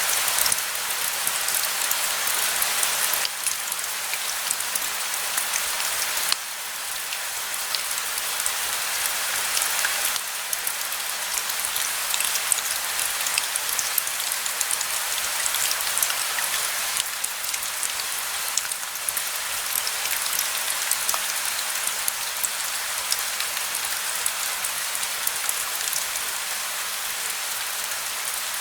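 Steady rain falling, a dense hiss of many small drops with individual drops ticking on a surface. The level shifts suddenly a few times.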